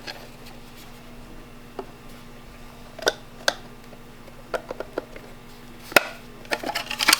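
Scattered light clicks and knocks of small parts and a hand tool being handled, the loudest about six seconds in and a quick run of them near the end, over a steady low hum.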